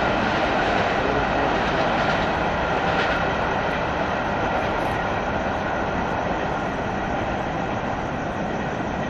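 A train running on the track: a steady rumble of wheels on rail that eases off slightly.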